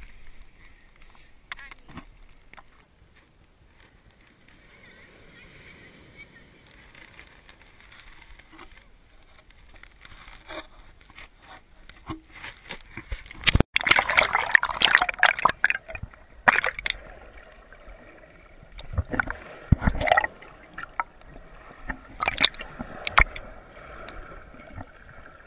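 Sand scraping and crackling against an action camera's waterproof housing as it is handled and dug around in the sand, in a loud stretch about halfway through and a few shorter bursts later.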